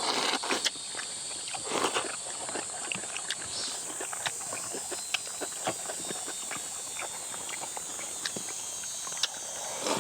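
Mukbang eating sounds: irregular clicks and taps of spoons and chopsticks on bowls together with chewing and slurping, a few louder slurps in the first couple of seconds. A steady high insect drone runs underneath.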